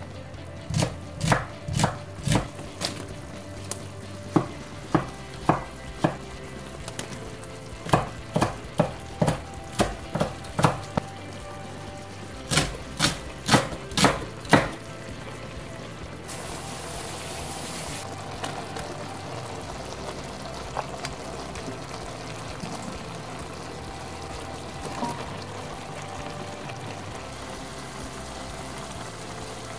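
A cleaver chopping vegetables on a wooden cutting board, single strokes in quick runs through roughly the first fifteen seconds. After that a wok of stir-fry sizzles and simmers steadily.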